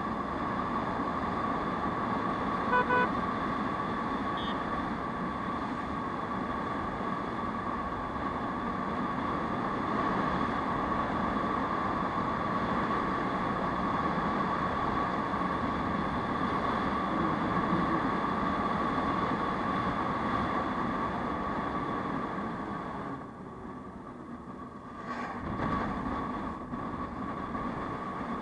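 Aprilia SR 150 scooter's single-cylinder engine and wind noise while riding at speed, a steady drone. A vehicle horn toots once, briefly, about three seconds in; the drone drops for a couple of seconds near the end.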